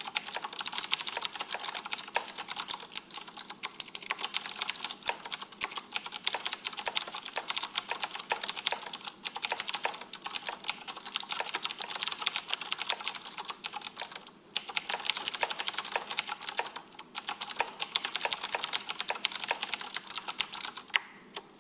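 Fast, continuous typing on a Razer BlackWidow Ultimate mechanical keyboard with clicky Cherry MX Blue switches: a dense stream of sharp key clicks. It pauses briefly about 14 and 17 seconds in and stops near the end.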